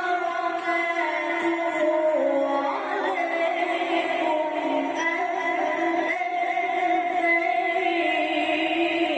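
A male Quran reciter chanting in melodic tajweed style, holding long ornamented notes that bend and slide in pitch, with one gliding drop about two to three seconds in.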